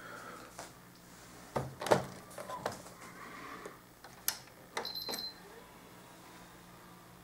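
Handling noise: a few scattered knocks and clicks as hands touch the S-VHS deck's front panel and the camera, the loudest about two seconds in. A short high electronic beep comes about five seconds in, over a faint low steady hum.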